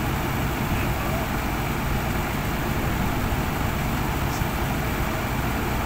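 Winch truck engine running steadily at idle, holding an even level, while the rig stands ready to pull.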